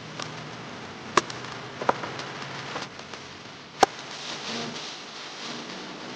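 A few sharp clicks and knocks, the loudest about four seconds in, some with a short ringing tone, over a steady background hiss.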